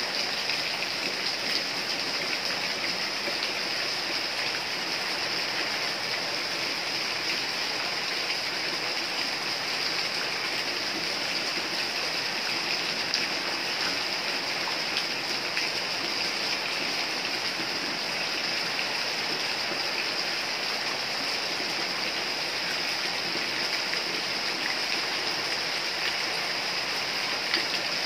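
Steady rain falling: an even hiss with a fine patter of individual drops.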